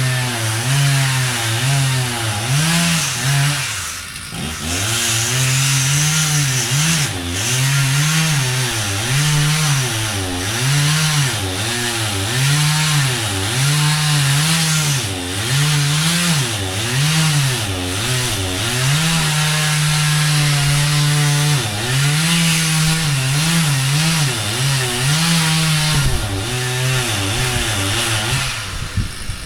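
Two-stroke chainsaw cutting wood, its engine pitch dipping and rising over and over as the chain bites and frees. It eases off briefly about four seconds in, holds steady for a couple of seconds about two-thirds through, and drops away at the end.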